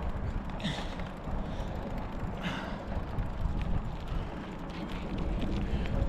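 Riding a bicycle: a low rumble of wind and tyres with scattered faint mechanical clicks and creaks, and two short hisses, the first about a second in.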